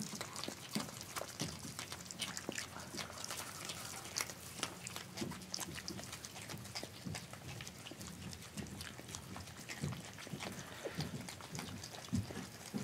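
Virginia opossum chewing food at close range: rapid, irregular little clicks of its mouth and teeth working.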